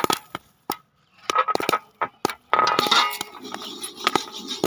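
Corn kernels popping in a pan of hot sand under a wire-mesh lid: sharp, irregular pops, some in quick clusters. There is a short lull about a second in, and denser crackling in the second half.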